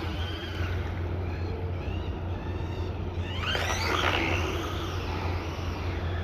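Brushless-motor RC car, a 1/14 Ferrari SF90 fitted with a 7200KV brushless motor, driving with its motor whining up and down as it speeds up and slows. There is a short burst of hissing noise about three and a half seconds in.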